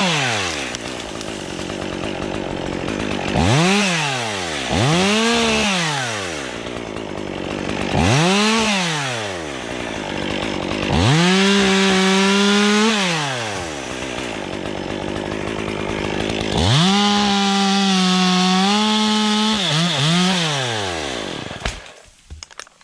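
Stihl MS 201 two-stroke top-handle chainsaw cutting wood: the engine is revved up and let back to idle over and over in short bursts, held at full throttle for about two seconds a couple of times. It goes quiet a second or so before the end.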